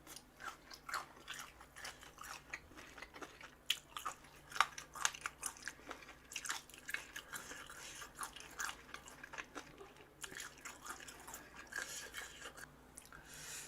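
A person chewing crunchy spicy chicken feet and pork cartilage, with many sharp, irregular crunches.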